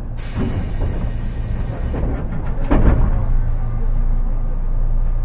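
Interior running sound of a Tobu 10030 series electric train car: a steady low rumble, with a rush of noise setting in just after the start. A run of sharp clacks comes about two seconds in, and the loudest clack near three seconds.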